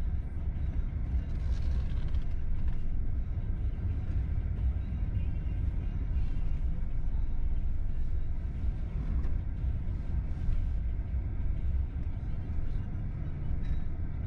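Car driving on a road: a steady low rumble of engine and tyre noise.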